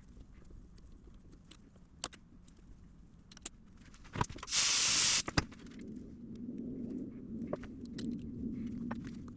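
Workshop handling sounds: scattered light clicks and knocks, a loud hiss lasting under a second about halfway through, then a low steady hum that builds toward the end.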